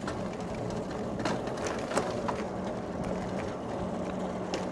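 Riding noise on an e-bike: a steady rush of road and wind noise with a faint steady hum that comes and goes, and a few light clicks or rattles.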